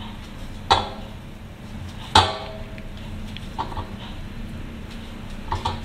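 Lumps of dough dropped into a stainless steel bowl: two sharp knocks about a second and a half apart, the bowl ringing briefly after the second, then a few softer taps.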